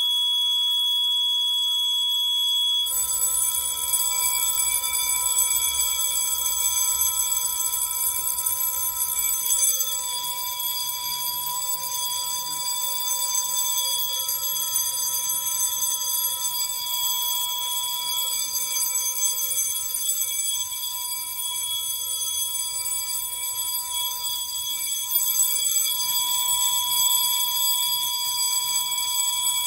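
Fire alarm horns sounding steadily in alarm, set off by a duct smoke detector sprayed with test smoke. About three seconds in, a single high steady tone gives way to a fuller buzzing horn sound that carries on unbroken.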